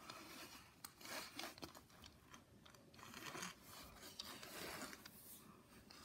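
Faint handling noise: rustling and rubbing with a few light clicks, from hands moving plastic Hot Wheels track pieces and toys close to the microphone.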